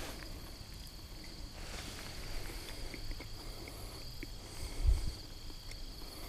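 Steady high insect chorus trilling without a break, over a low rumble, with one brief low thump near the end.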